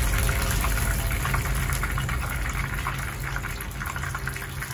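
Flour-coated chicken pieces sizzling and crackling as they deep-fry in hot oil, the sound slowly fading.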